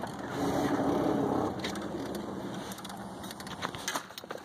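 Rustling and rattling handling noise as a tackle box is passed over and rummaged through, with a few sharp clicks.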